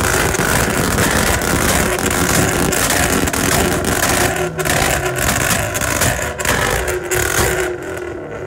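Tuned car engines held against two-step launch limiters, the exhausts giving a loud, dense, rapid crackle of pops and bangs. It eases off near the end.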